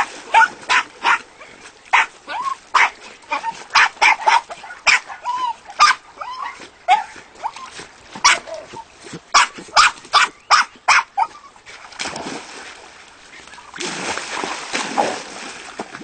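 Jack Russell terriers barking and yipping in quick, irregular runs of sharp barks. The barking stops about twelve seconds in, leaving a rushing noise.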